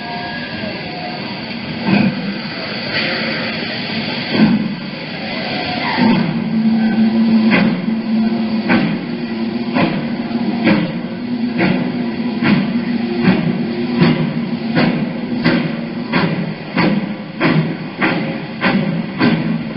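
GWR Hall-class steam locomotive Hagley Hall starting away. Its exhaust beats come slowly at first, then steadily faster, reaching about two a second near the end, over a continuous low rumble.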